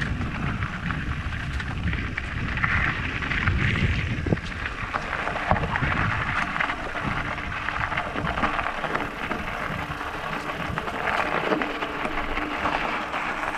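Wind buffeting the microphone on a moving e-bike: a steady, uneven rumble with a hiss above it.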